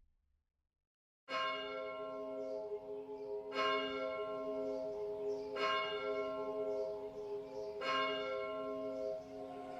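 A bell tolling, struck four times about two seconds apart, each stroke ringing on into the next, after a second of silence.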